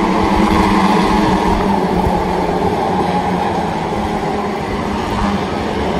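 A pack of superbike racing motorcycles running at high revs out on the circuit, several engines blending into one steady, loud sound.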